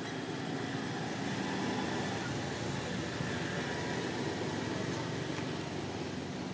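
Steady outdoor background noise: an even rumble and hiss with a faint hum running through it, and no distinct event.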